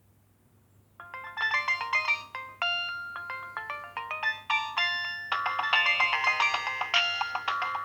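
Nokia 2610 mobile phone playing a polyphonic ringtone through its speaker: a melody of quick electronic notes, several at once, that starts about a second in and grows fuller and louder about five seconds in.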